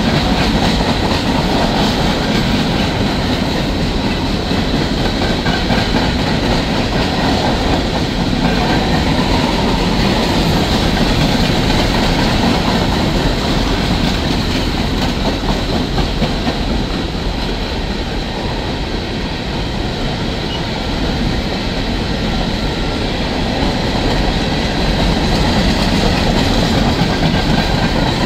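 Empty open-top coal hopper cars rolling past at steady speed, with steel wheels running on the rails and wheels clicking over the rail joints.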